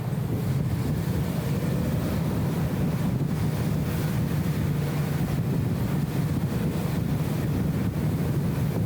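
BMW E34 M5 Touring's straight-six engine and road noise at a steady cruise: a low, even drone, muffled and flattened by the camera's anti-wind audio filter.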